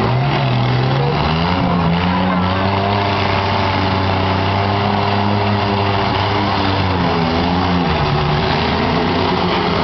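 Demolition derby trucks' engines running hard over a steady din of other engines; one engine revs up about a second and a half in, holds high, and drops back near the end.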